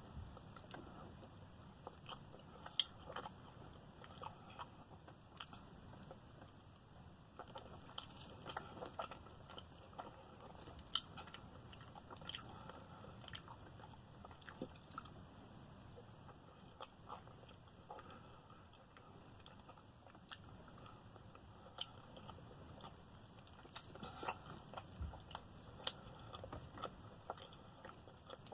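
A person chewing and biting into fried chicken, faint, with scattered crisp crunches and mouth clicks.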